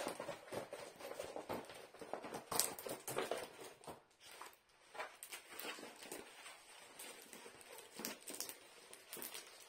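Plastic-covered hot-glue diamond-painting canvas being handled and rolled back against its curl: irregular crinkles, crackles and soft taps of the plastic film and canvas.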